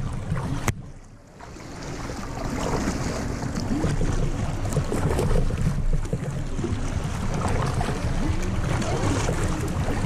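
Wind buffeting the microphone of a camera mounted low on a kayak, over water lapping and splashing at the hull. A single click comes just before a second in; the rumble then dies away briefly and builds back up over the next few seconds.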